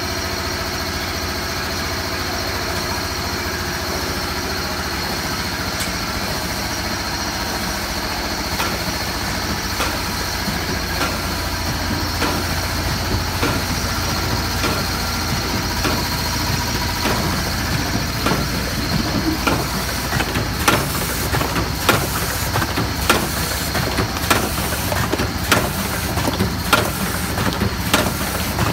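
Rotary coffee capsule filling and sealing machine running: a steady low hum with a thin high whine, and a sharp clack about once a second that grows louder in the last third.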